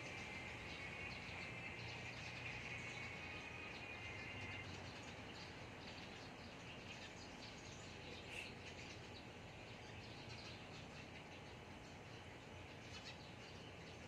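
Faint outdoor ambience of birds chirping now and then among the trees, with a steady high buzz that fades out about four to five seconds in.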